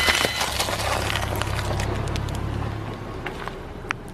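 A car tyre rolling over a plastic-wrapped packet of Oreo cookies on snow-covered ground, with many small cracks as the cookies and wrapper break under it. The car's engine runs low underneath and fades out after about three seconds, and a single sharp click comes near the end.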